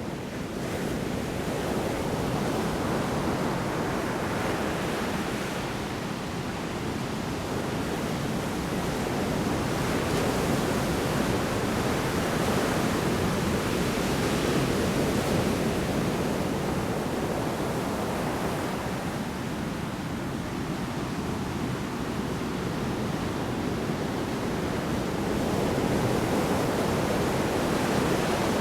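Heavy storm surf breaking on the shore: a continuous dense roar of water that swells and eases slowly as waves come in.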